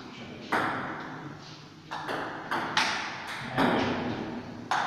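Table tennis ball clicking against hard surfaces: about six sharp, irregularly spaced ticks, each followed by a short ring of room echo.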